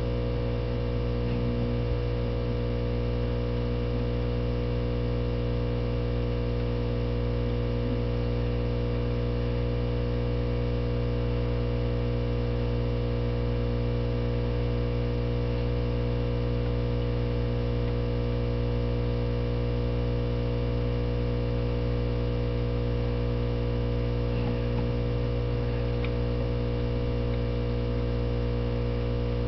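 Steady electrical hum, low and even, with a stack of overtones above it.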